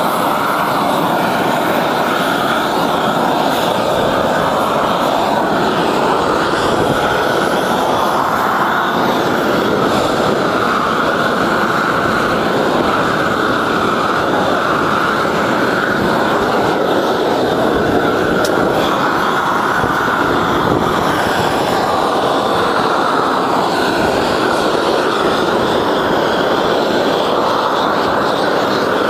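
Hose-fed propane roofing torch burning with a loud, steady rushing noise as it heats the torch-down roofing membrane along the parapet base.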